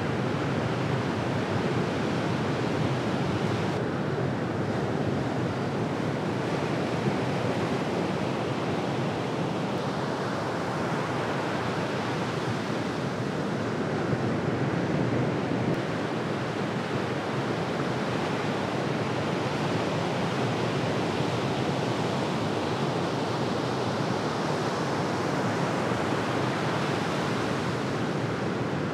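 Ocean surf breaking and washing ashore: a steady, continuous rush of waves and whitewater.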